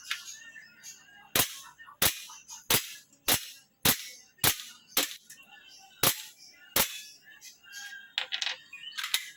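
Airsoft gun firing a string of nine sharp shots, roughly one every half second or so, with a short pause before the last two; a few fainter clicks follow near the end.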